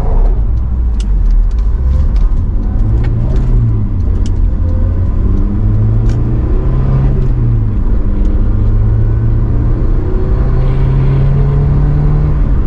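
Honda S2000's four-cylinder engine accelerating through the gears, its pitch climbing and then dropping at each of several upshifts.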